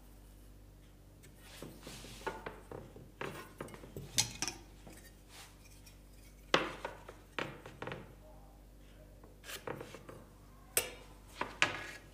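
Steel combination square, pencil and lengths of timber being set down and shifted on a wooden workbench during marking out: scattered sharp clacks and knocks with some rubbing, the loudest about six and a half seconds in.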